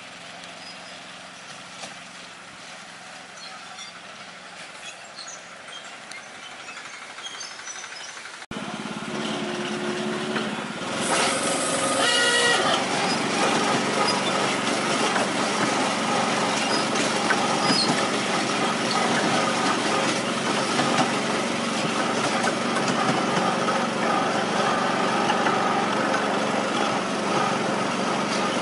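Small engine of a 7¼-inch gauge miniature railway locomotive running with a steady hum. It is faint at first, then about eight seconds in it becomes suddenly much louder and closer as the train rolls along the track. Partway through, a brief high-pitched tone sounds.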